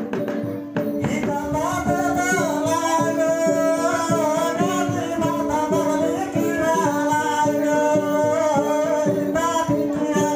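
Sumbanese gong ensemble playing a steady repeating pattern of ringing gong tones with percussive strikes. From about a second in, a high voice sings a long wavering line over it.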